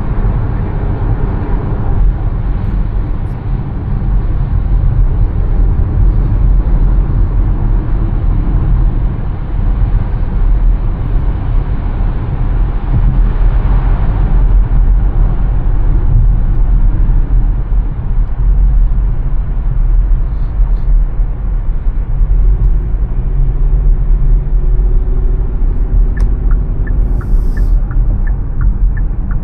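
Steady road and engine rumble of a car driving on an expressway. Near the end a light, regular ticking begins, about three ticks a second.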